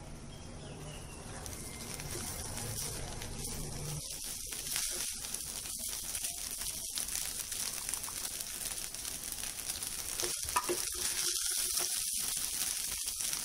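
Rice sizzling as it fries in an oiled pan, a steady hiss, with a wooden spatula scraping and tossing it against the pan in irregular strokes from about four seconds in.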